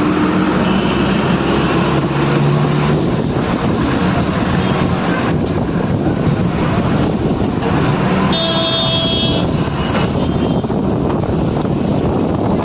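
Busy road traffic: a steady wash of passing vehicles and engines, with a vehicle horn sounding for about a second around two-thirds of the way through.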